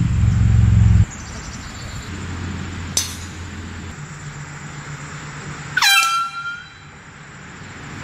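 Handheld canned air horn blasting once, about six seconds in: its pitch jumps up as it starts, then it holds for under a second and fades. Before it, a loud low hum cuts off about a second in, and a sharp click sounds about three seconds in.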